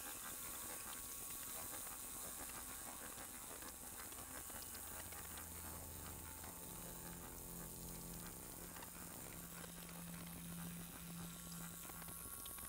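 Live experimental electronic noise: a steady hiss with faint crackling, joined in the middle by low humming drone tones that swell and fade.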